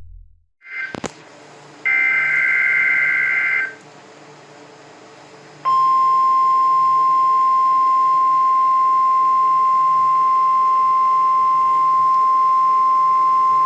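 NOAA Weather Radio Required Weekly Test received on a weather radio. A click comes first, then a buzzy burst of about two seconds of the two-tone EAS SAME data header. After a short pause, the steady 1050 Hz weather radio warning alarm tone starts about six seconds in and holds.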